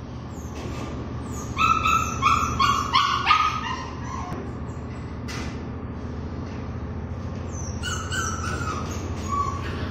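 A small dog yipping: a quick run of five or six short high-pitched yips, then two or three more near the end. A steady low hum runs underneath.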